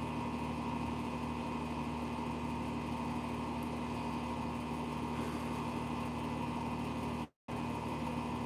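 A steady mechanical hum from a running motor, with several constant tones and no change in level. The sound cuts out completely for a moment a little after seven seconds in.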